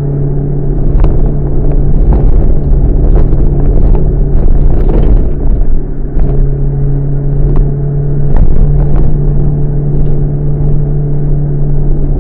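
Modified Subaru EN07 four-cylinder kei engine running through a one-off RS-R exhaust with a flange silencer, droning at a steady pitch while driving. A few sharp clicks sound over it.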